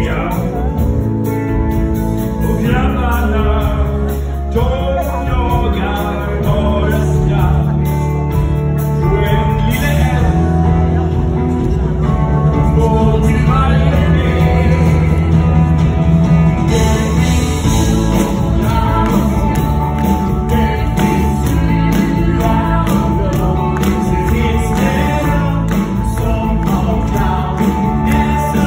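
Live band music with singing from a stage musical, voices over a steady bass and band, picked up from the audience by a phone's microphone.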